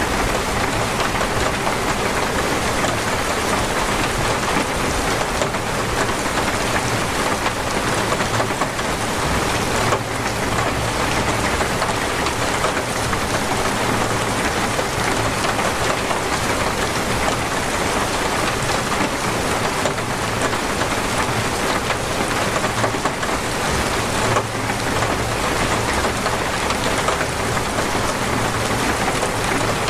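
Heavy, torrential rain falling steadily at an even, loud level.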